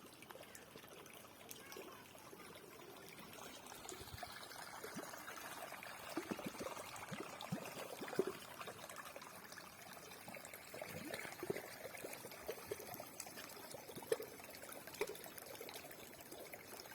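Running water trickling and splashing, a steady faint wash with many small plops and gurgles scattered through it.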